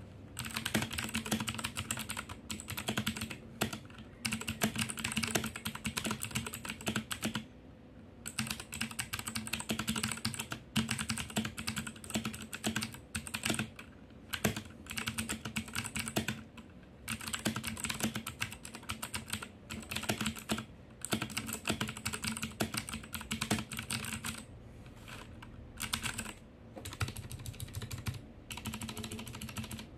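Typing on a Royal Kludge G68 mechanical keyboard fitted with stock RK blue clicky switches and no case foam: rapid, continuous key clicking with a few brief pauses.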